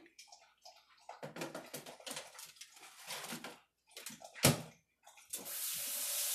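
Clatter of a baking tray and rack being loaded into a countertop air fryer oven, a sharp snap about four and a half seconds in as its door shuts, then a kitchen tap running steadily into the sink.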